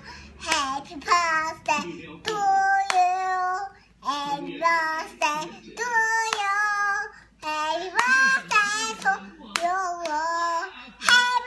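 A young child singing in a high voice, note after note with short breaks, with a few hand claps.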